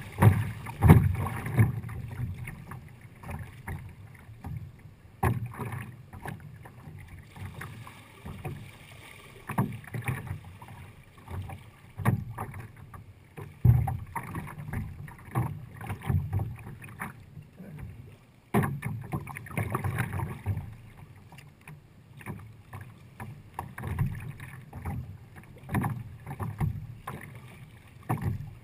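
Sea kayak being paddled: the paddle blades dip and splash with each stroke, and water sloshes against the hull, in uneven surges about every one to two seconds.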